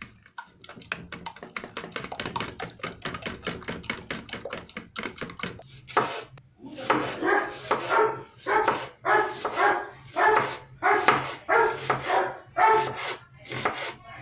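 Eggs being beaten in a bowl, a rapid run of small clicks for about six seconds. Then a dog barks over and over, about twice a second, over a knife slicing through an onion on a board.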